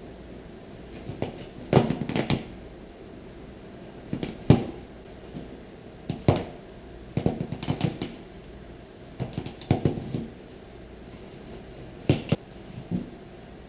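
A black Labrador tearing and chewing at a sofa cushion close to the microphone: irregular rips, knocks and thumps in clusters every second or two.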